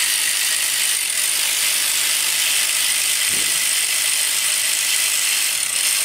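Cordless electric ratchet running steadily, backing out the belt tensioner's bolt, then cutting off near the end.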